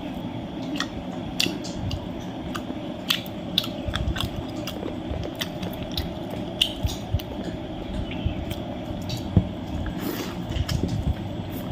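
A person eating chicken curry and salad: chewing and biting, with irregular crisp clicks and crunches.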